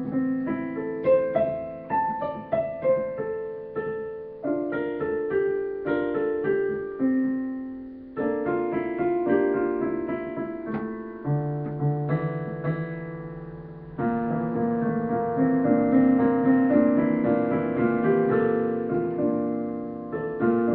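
Digital piano played solo: a slow melody of single notes and chords, each note fading after it is struck. About two-thirds of the way through it turns louder and fuller, with held chords.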